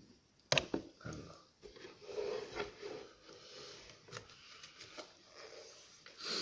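A sharp knock about half a second in as a deck of tarot cards is set down on the table, then faint taps of card handling. Sniffing from a man with a head cold, with a louder sniff near the end.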